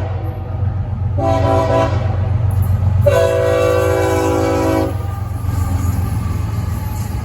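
Amtrak passenger train's multi-chime air horn sounding a horn salute: a short blast about a second in, then a longer blast of about two seconds, over the train's steady low rumble as it passes.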